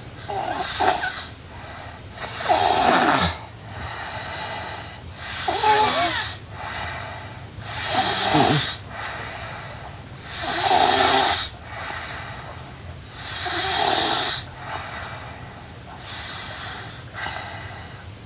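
A sleeping girl snoring, with seven loud snores about every two and a half to three seconds, each lasting around a second.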